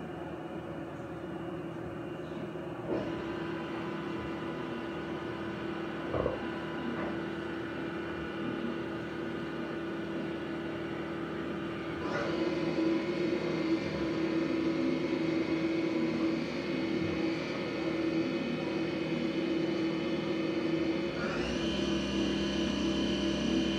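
Haas TM-2 CNC toolroom mill running, its spindle and axis drives making a steady whine of several held tones. The sound steps up louder and higher three times, a few seconds in, about halfway and near the end, with a few short clicks along the way.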